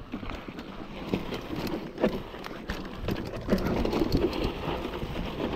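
Mountain bike rolling down a dry, stony dirt trail: tyres crunching over gravel and loose rock, with many short knocks and rattles over bumps, growing louder as it gathers speed.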